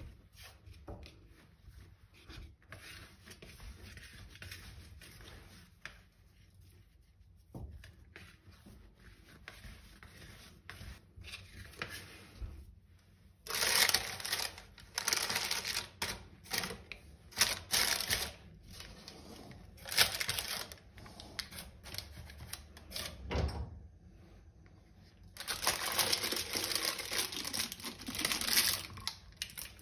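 Baking paper crinkling and rustling in several loud bursts as it is handled around dough in a lined pot, starting about halfway through. Before that, only soft rubbing of hands on dough.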